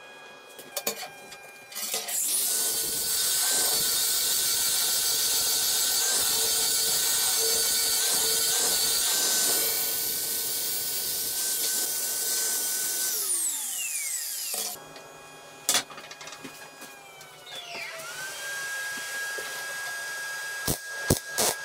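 Angle grinder grinding a 12 mm steel bar: a steady high whine over harsh grinding noise. About thirteen seconds in it is switched off and spins down, its whine falling away.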